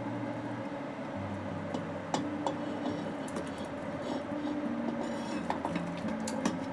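Ingredients being dropped into a pot of boiling water, with scattered light clicks and clinks. Underneath, soft background music of slow held low notes.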